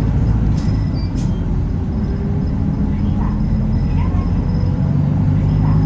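City bus engine running steadily under way, heard from inside the passenger cabin, its pitch rising gently in the middle. Two sharp clicks come about half a second and a second in.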